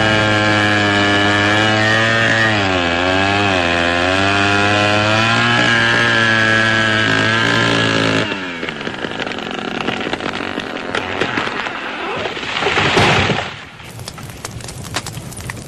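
Gasoline chainsaw running under load as it cuts into a large tree trunk, its pitch dipping and recovering, then stopping about eight seconds in. After a noisier stretch comes a loud swelling rush around thirteen seconds, then the crackling of burning brush.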